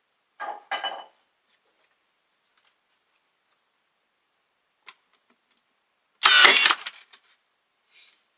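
Ridgid cordless nailer firing once: a short motor whir with a sharp drive of under a second, the loudest sound here. Two brief handling noises come just before, near the start.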